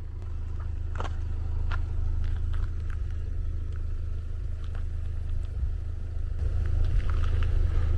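Car driving along: a steady low engine and road drone with a few faint clicks over it.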